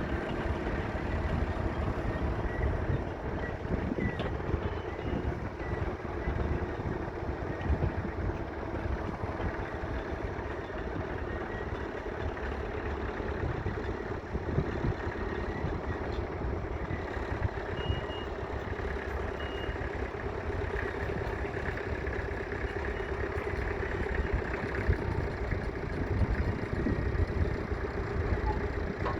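1964 Massey Ferguson 35X's 2.5-litre three-cylinder diesel engine running steadily.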